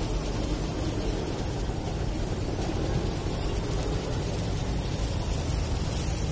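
Steady low rumble with a hiss over it, even throughout with no distinct knocks or clatter.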